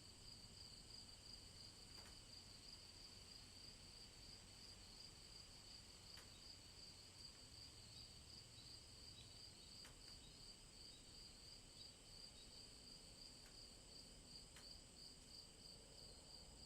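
Faint evening insect chorus: crickets chirping in a steady, rapid, high-pitched pulsing trill, with a few faint clicks now and then.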